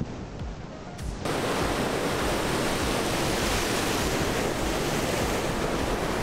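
Steady rush of surf washing against jetty rocks, mixed with wind on the microphone; it gets louder and fuller about a second in.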